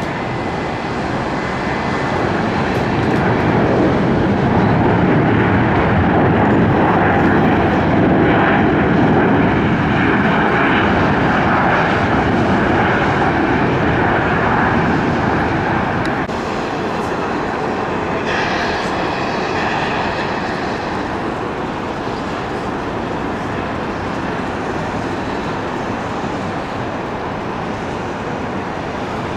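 Boeing 737 airliner's jet engines roaring on the landing rollout, swelling for about ten seconds and then easing. After an abrupt change about 16 s in, a quieter, steady jet roar follows.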